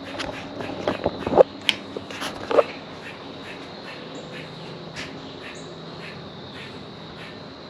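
Outdoor ambience: scattered short bird chirps and clicks, a few louder ones in the first three seconds, over a faint steady high insect tone.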